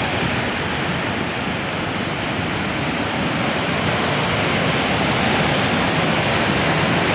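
Mountain torrent in spate rushing through a rocky gorge below a steel bridge: a loud, steady rush of white water.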